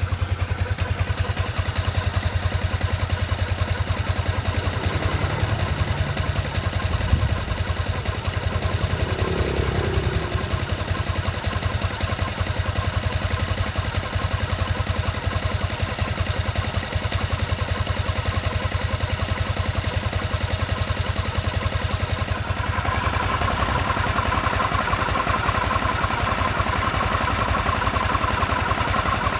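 Yamaha Exciter 155 VVA's single-cylinder SOHC engine idling steadily, freshly started and warming up. About three quarters of the way through, the sound turns brighter as the microphone is held closer to the engine.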